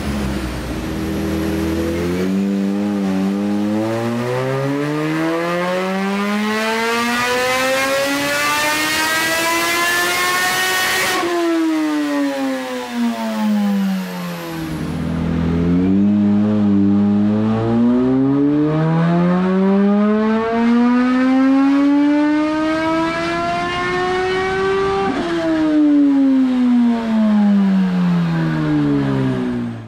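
Supercharged 998 cc inline-four of a 2020 Kawasaki Z H2 with a free-flowing SP Engineering muffler, run at full throttle on a rolling-road dyno. The engine revs climb steadily for about nine seconds, drop sharply as the throttle shuts and wind down, then it makes a second pull up through the revs and winds down again.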